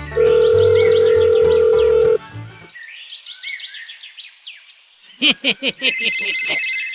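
Cartoon soundtrack of music and sound effects. A loud held tone sounds over the music for about two seconds, then a quick run of whistling up-and-down chirps follows. Near the end a pulsing electronic ringtone-like ringing starts.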